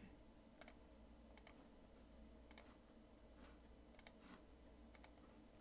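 Faint computer mouse clicks, about seven spread over a few seconds, including two quick double-clicks near the end, over a low room hiss.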